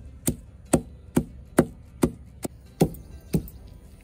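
Rhythmic pounding, about two sharp knocks a second, as fresh plant stems are beaten to crush out their fibres and slimy sap for a herbal hair wash.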